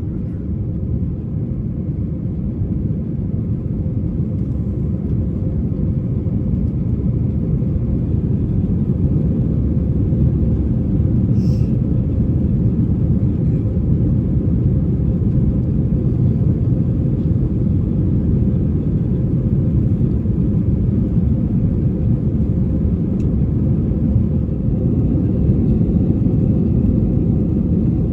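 Steady low rumble of an Airbus A321-200 airliner cabin in flight, engine and airflow noise, slowly growing a little louder, with one faint click about halfway through.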